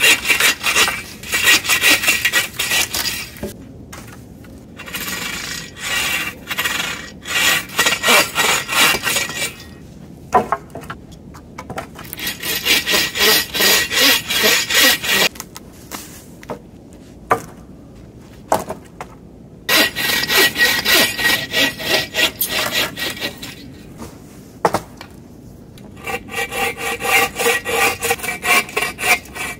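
Folding bow saw cutting through dead, fallen oak limbs: quick runs of back-and-forth strokes in several bouts of a few seconds each, with short pauses between.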